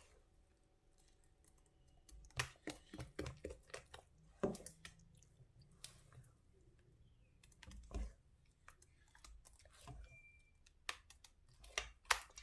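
Scattered light clicks and taps of kitchen utensils and a mixing bowl being handled, with a quick run of them about two seconds in, a single one midway, and another cluster near the end.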